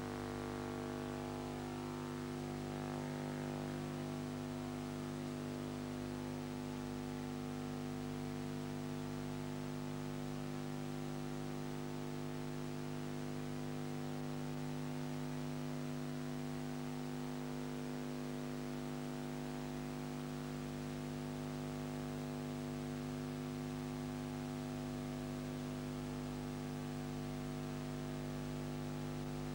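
Steady electrical mains hum, several tones held together, over an even hiss: the background noise of a silent ciné film transferred to video.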